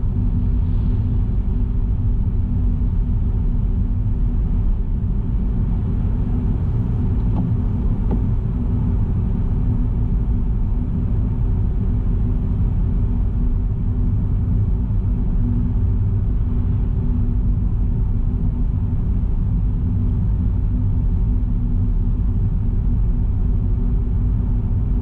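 Steady low rumble of a car driving at an even speed, with a steady hum running under it.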